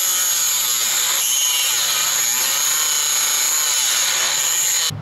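Dremel rotary tool with a cut-off wheel grinding through a stripped motor-mount bolt, a steady high-pitched whine with a cutting hiss. It stops suddenly just before the end.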